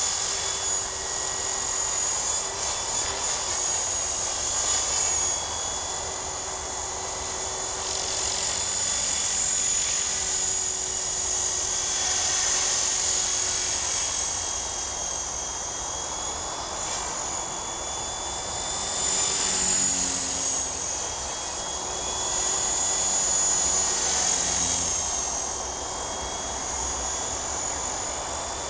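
Sonix SX 450 SE electric RC helicopter in flight: a high-pitched motor and drivetrain whine, shifting slightly in pitch and swelling and fading in loudness every few seconds as it moves around.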